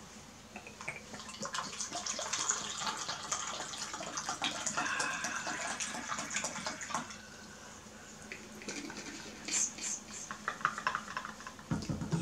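Coconut water poured from a plastic bottle into a plastic cup, a steady splashing stream for about five seconds. After it come a few sharp clicks.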